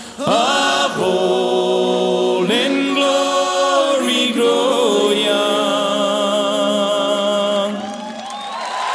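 Music: a song with long held sung notes and choir-like vocals, easing slightly near the end.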